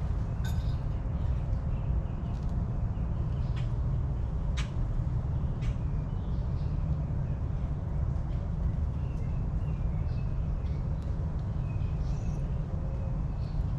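Backyard ambience: a steady low rumble with small birds chirping briefly and scattered throughout, and a few sharp clicks about four to six seconds in.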